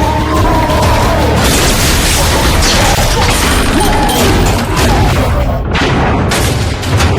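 Dense action-film sound mix: deep booms and crashing impacts over a loud rumble, with dramatic film score underneath.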